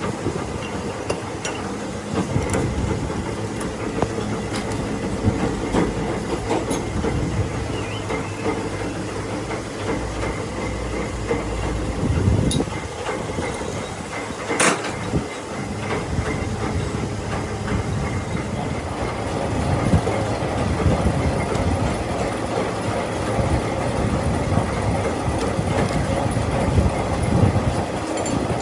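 Milling machine running and cutting teeth into a worm gear, a steady mechanical clatter with irregular clicks and one sharp click about midway.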